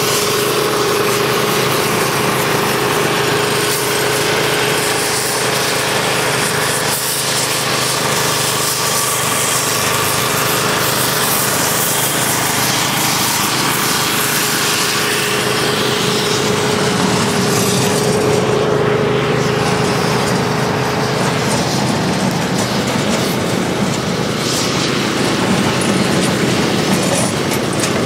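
KM Crackjet II hot-air lance running: its small engine and propane burner drive a steady rushing blast of hot air into an asphalt crack to clean and dry it before sealing. A steady hum carries through most of it and drops away about three quarters of the way in.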